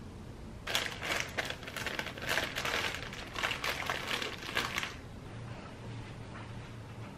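Clear plastic bag crinkling as it is handled: a run of irregular crackly rustles starting about a second in and stopping about two-thirds of the way through.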